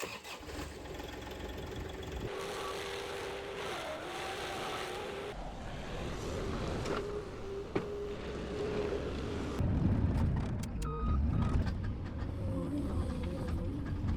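Bandit 2550 stump grinder's engine running, growing louder with a deeper rumble about ten seconds in as the machine works harder.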